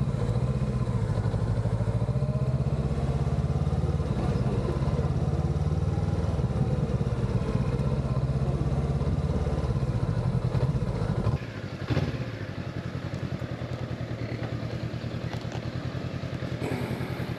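Honda CB500X motorcycle's parallel-twin engine running under way, then dropping suddenly to a quieter, even idle about two-thirds through as the bike pulls up, with a single click a moment later.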